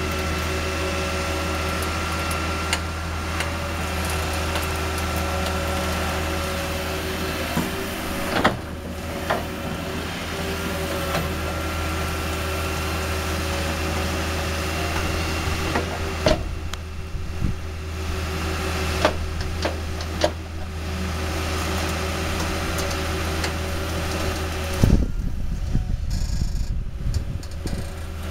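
Caterpillar long-reach tracked excavator running steadily, its engine hum carrying steady whining tones, with scattered knocks as the bucket works mud and debris in shallow water. About 25 seconds in the steady hum drops away and irregular knocks and rumbling take over.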